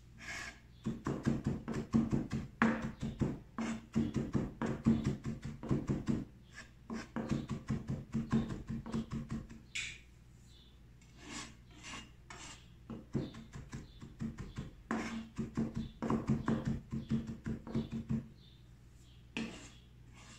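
Knife chopping fresh herbs on a cutting board: quick runs of sharp strokes, several a second, in bursts separated by short pauses.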